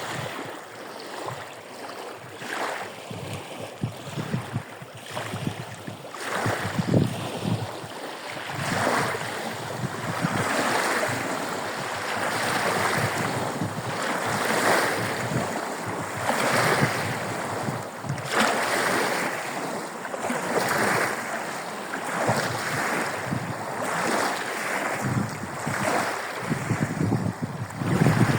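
Small waves on a bay breaking and washing onto the shore, a rush of surf swelling up about every two seconds, with wind buffeting the microphone.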